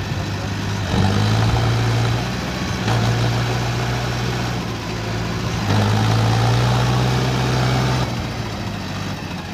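Tractor diesel engine running hard, surging louder three times, about a second in, around three seconds and near six seconds, then settling back near the end.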